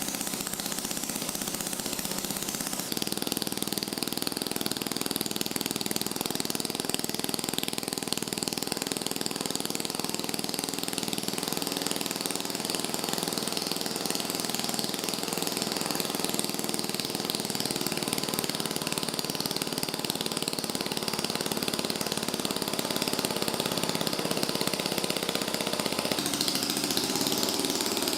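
A steady, dense mechanical noise that runs without a break. It changes character slightly about three seconds in and again near the end.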